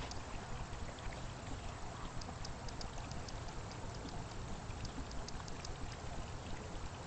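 Three-tier garden fountain splashing steadily, water falling into its basin.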